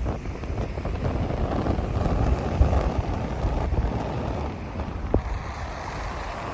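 Waves washing onto a beach, under wind buffeting the microphone with an uneven low rumble.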